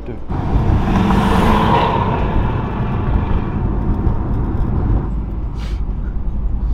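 A car's engine and road noise heard from inside the cabin while driving, a steady low rumble that sets in just after the start, with a louder rush in the first couple of seconds.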